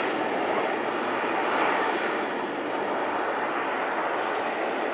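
Twin General Electric CF34 turbofans of an Embraer E170 regional jet at climb power just after takeoff: a steady rushing jet noise that slowly fades as the aircraft climbs away.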